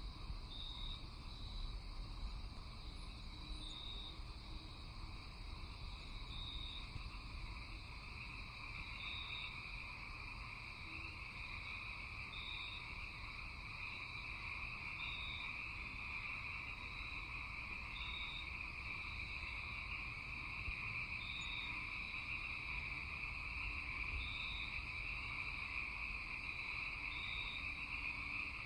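Night chorus of insects and frogs: a steady high-pitched trilling drone, with a short high note repeating about every three seconds.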